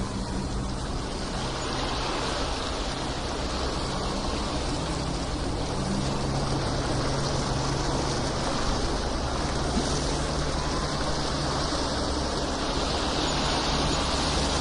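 Steady rushing of water, with a low steady hum underneath.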